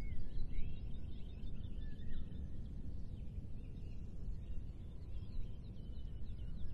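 Small birds chirping in many short, quick notes over a steady low rumble of wind.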